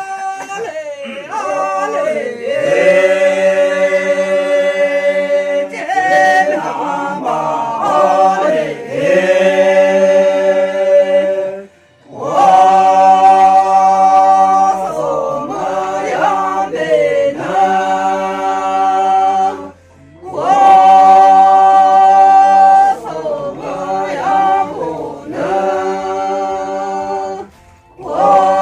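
Unaccompanied group singing in long held notes, the phrases broken by short pauses about 12, 20 and 27 seconds in.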